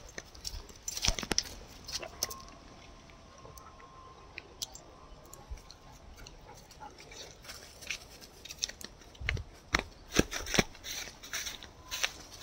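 Footsteps crunching through dry fallen leaves on a dirt path, as irregular crackles that come thickest about a second in and again around ten seconds in.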